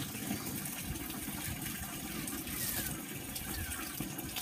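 Wet chewing and slurping of a juicy araza fruit close to the microphone, a steady wet hiss with small smacking clicks.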